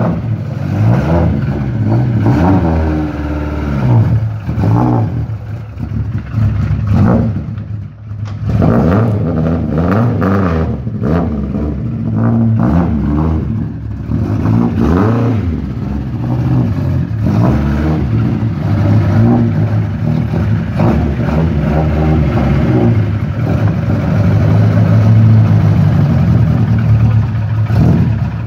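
Lada 2107 rally car's 1.9-litre engine running and being revved again and again, its pitch rising and falling between revs.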